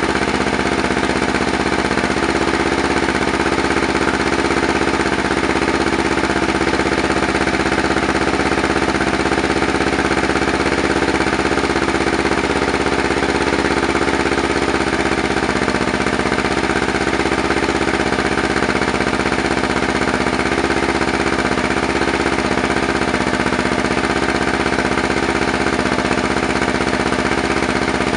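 Kawasaki Ninja 300's parallel-twin engine idling through a Leo Vince Corsa GP aftermarket exhaust, loud and steady with no revving.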